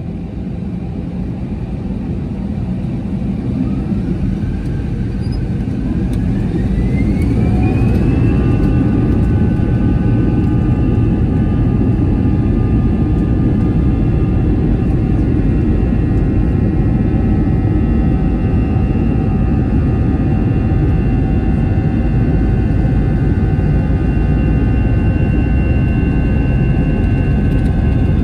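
Airbus A320's jet engines spooling up to takeoff thrust, heard from inside the cabin: a whine rises in pitch over about four seconds, then holds steady over a loud roar and rumble of the takeoff roll.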